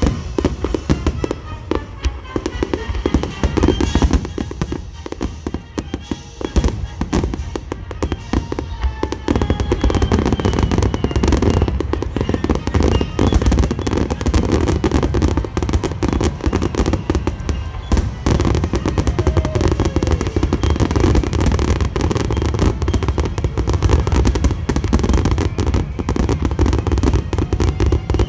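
Fireworks going off in a dense, rapid barrage of bangs and crackles. About ten seconds in it thickens into an almost unbroken volley.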